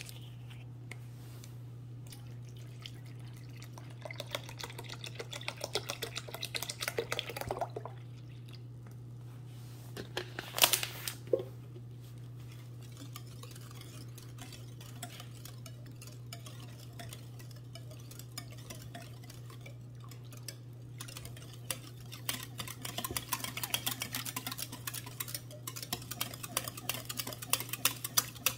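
Wire whisk beating a thin batter in a glass bowl, its wires clicking rapidly against the glass in two spells, with a sharp knock about ten seconds in. A steady low hum runs underneath.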